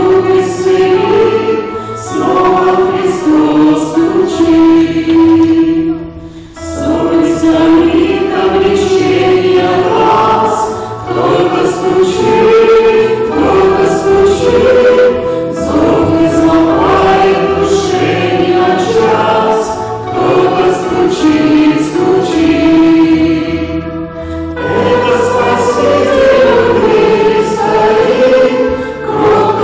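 Choir singing a Christian hymn, sustained sung phrases with short breaks between them, about six and twenty-four seconds in.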